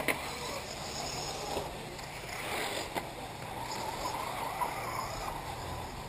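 Radio-controlled off-road model cars running on a dirt track, with a faint wavering whine in the middle and a sharp click about three seconds in.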